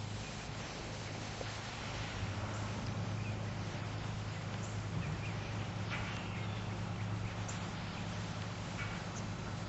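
Outdoor garden ambience: a steady low hum over constant hiss, with a few faint, brief chirps partway through and near the end.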